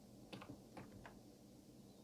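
A handful of faint computer keyboard and mouse clicks, some in quick pairs, over near-silent room tone.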